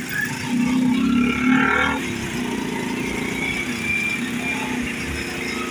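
Street traffic: motorcycle and motorcycle-rickshaw engines running close by, heard from a moving vehicle.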